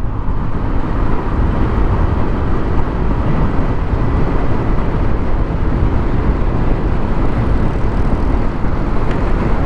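Steady wind and road noise of a scooter being ridden at speed, a dense low rumble with wind rushing over the rider's microphone.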